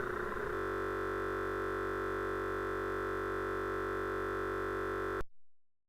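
Steady, unchanging electronic buzzing drone made of many fixed tones, which cuts off abruptly about five seconds in, leaving dead digital silence.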